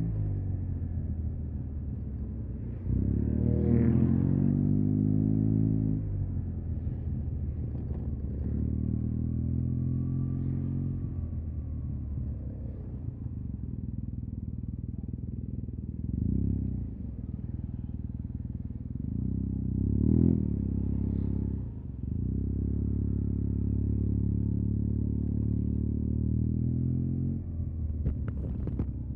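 Yamaha TMAX 560 scooter's parallel-twin engine through an Akrapovic carbon full-system exhaust, idling and pulling off in short bursts of throttle in slow traffic. The pitch rises about three seconds in and again near nine seconds, with brief blips later between stretches of steady running.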